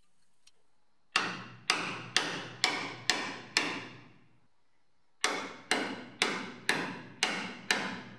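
Hammer blows on a chisel driven in to split a rusted jacking point off a car's sheet-steel chassis, each strike ringing as it fades. Six blows at about two a second, a pause of about a second and a half, then six more.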